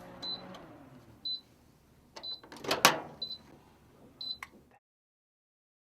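Microwave oven's electronic beeper sounding five short, high-pitched beeps about a second apart, with a loud mechanical clunk a little under three seconds in.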